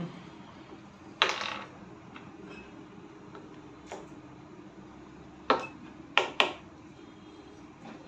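A handful of short, sharp plastic clicks from a whiteboard marker's cap being worked off and on, the loudest three coming close together past the middle, over a steady low room hum.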